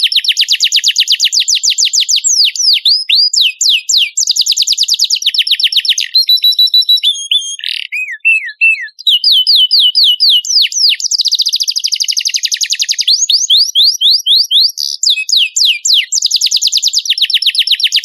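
Domestic canary singing a long, continuous song: fast trills of rapidly repeated notes alternating with slower runs of sweeping whistled notes, changing phrase about halfway through.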